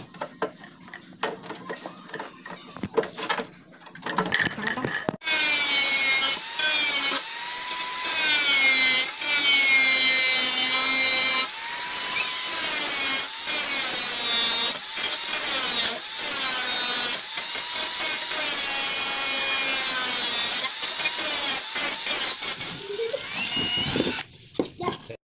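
Handheld electric power tool cutting into plywood, its motor whine dipping in pitch again and again as the blade loads and then recovering. It starts about five seconds in after a few light knocks and stops near the end.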